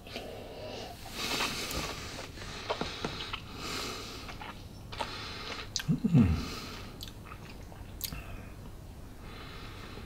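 Sipping whisky from a tasting glass, with a soft airy slurp, then small mouth and lip clicks while the spirit is held and tasted. A short low hum that falls in pitch comes about six seconds in.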